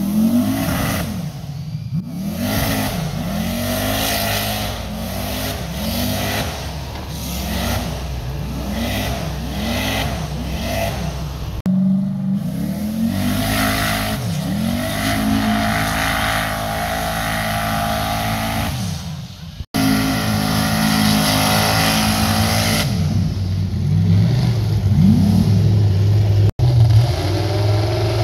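Off-road mud buggy's engine revved hard again and again, its pitch rising and falling about once a second as it churns through deep mud. It is then held at high revs for several seconds. The sound breaks off abruptly twice.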